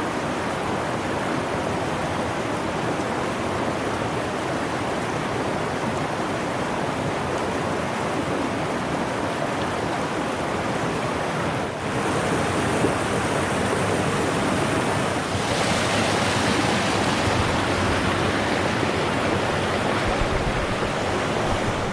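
Fast-flowing stream rushing over rocks, a steady full rush of water. About halfway through it gets a little louder and brighter.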